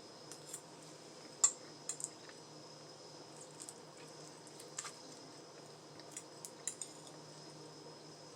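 Cutlery clinking on a plate: a handful of light, separate clicks and taps, the loudest about one and a half seconds in, over a faint steady hum.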